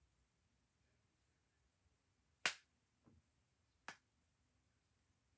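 Metal snap hair clips clicking shut in hair: a sharp click about two and a half seconds in, a faint one just after, and another sharp click near four seconds.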